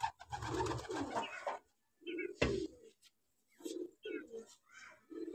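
Domestic pigeons cooing, a string of short low coos repeating. A rustling noise runs through the first second or so, and there is one sharp knock a little before halfway.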